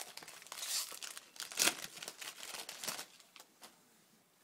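Shiny foil wrapper of a baseball card pack being opened and crinkled by hand, in a run of crackly bursts that die away after about three and a half seconds.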